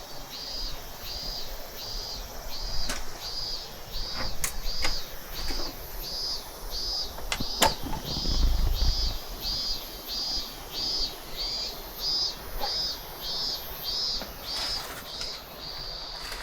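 An insect chirping in a steady, even rhythm, a high-pitched pulse about one and a half times a second. It is broken by a few sharp knocks and a low thud just past the middle.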